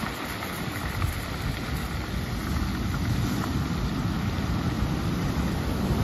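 Ocean surf washing up a black pebble beach and breaking against rocks, a steady rushing wash that builds slightly, with wind buffeting the microphone underneath.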